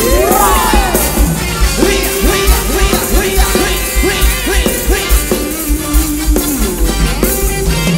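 Live band playing Thai ramwong dance music: a steady kick-drum beat under a lead melody of short sliding, bending notes.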